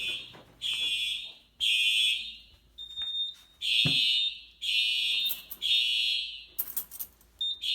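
Home fire alarm system sounding in high-pitched pulses, about one a second, set off by a smoke detector test with canned smoke. A single thump comes about halfway through.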